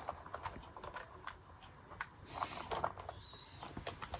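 Light, irregular clicks and taps of a Marx O gauge toy locomotive and tender being handled, with a cluster of clicks a little past halfway and one sharp click near the end.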